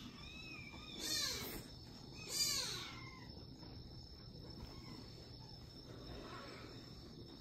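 Kitten mewing: two short, high-pitched mews about a second apart.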